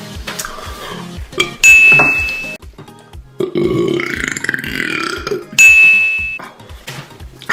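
A long, drawn-out burp lasting about two seconds, over background music with a steady beat. A bright chime rings twice, before and after the burp, and is louder than it.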